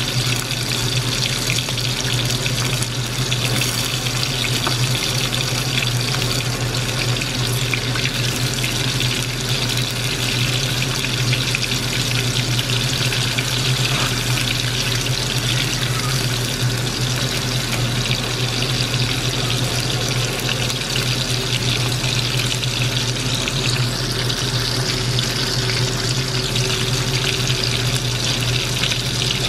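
Squid rings sizzling steadily as they deep-fry in hot oil in a wok, a continuous crackling hiss, with a steady low hum underneath.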